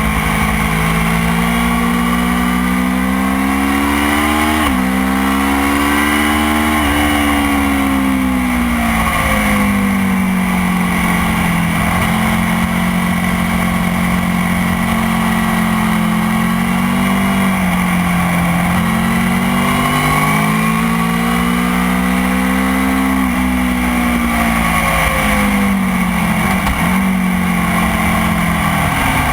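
Motorcycle engine at race pace, its pitch climbing and dropping sharply at upshifts, then falling away through downshifts, several times over.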